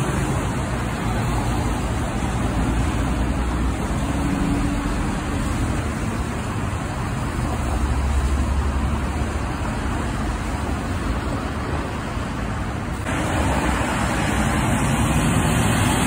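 Road traffic: a steady wash of tyre noise on wet pavement over the low running of passing tractor-trailer and car engines. The sound changes abruptly about thirteen seconds in.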